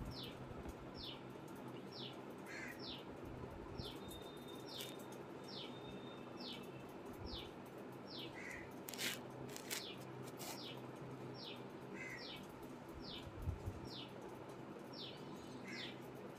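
A bird chirping over and over, short high notes that slide downward about once a second, with a few lower chirps in between, over a faint steady hum.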